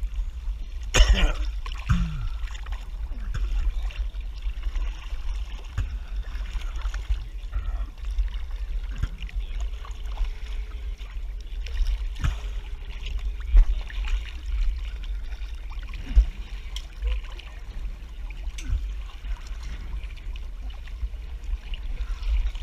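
Sea water lapping and sloshing around a camera floating at the surface, with a steady low rumble and scattered short splashes.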